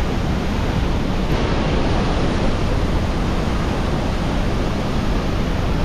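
Bridal Veil Falls at Niagara heard close up: a loud, steady rush of falling water.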